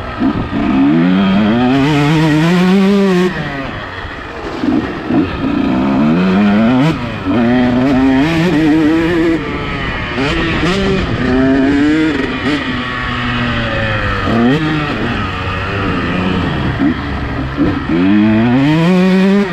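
Two-stroke motocross bike engine revving hard and backing off again and again, its pitch climbing and dropping every few seconds as the rider opens and closes the throttle.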